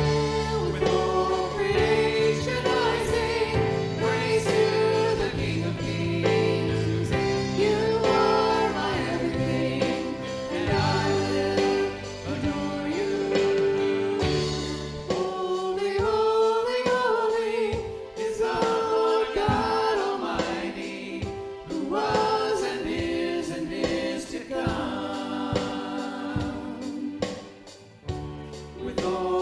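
Gospel-style worship song sung by a choir over instrumental accompaniment. About halfway through the bass drops out and the voices carry on more lightly.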